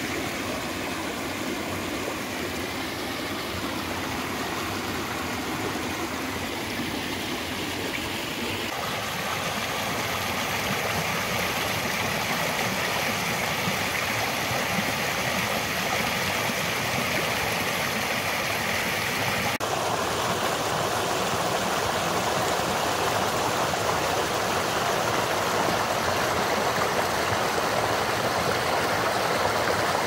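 Water rushing steadily through a drainage-ditch culvert pipe, fed through a broken-out beaver dam, with the pipe at full flow. The sound shifts abruptly twice, about nine and twenty seconds in.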